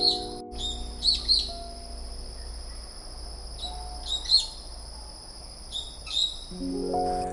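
Birds chirping in small groups of short calls every second or two, over a steady high-pitched hum. Soft piano notes ring on at the start and a rolled piano chord comes in near the end.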